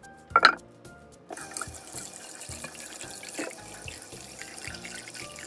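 A sharp knock about half a second in, then a kitchen tap running into a stainless steel bowl in the sink, splashing as a lotus root is rubbed clean under the stream.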